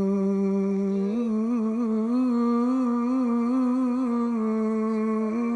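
Male voice holding one long melismatic note of Arabic religious chant (inshad). The note is steady at first, breaks into quick wavering ornaments from about a second in, and settles again near the end.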